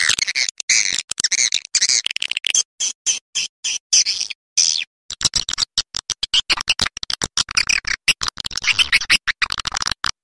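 Swiftlet call recording played as a lure: fast trains of high twittering chirps and clicks, broken by short gaps, becoming denser about halfway through.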